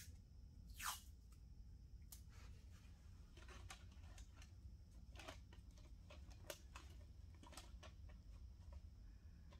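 Tape pulled off the roll in one short rip about a second in, then faint crinkles and taps as a paper template is pressed and taped down, over a low steady hum.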